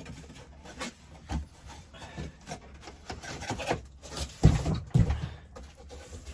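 Cardboard packaging being opened and handled: irregular rubbing and scraping, with a few dull thumps about four and a half to five seconds in.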